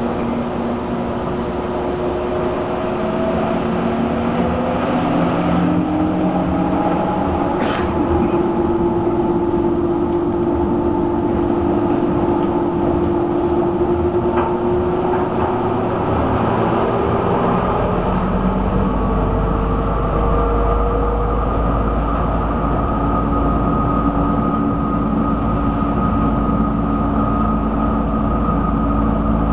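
Cabin noise of a Matra VAL 256 rubber-tyred automated metro train running, its traction motors whining in several tones that rise slowly as the train gathers speed, then hold steady. A deep rumble joins in a little past halfway.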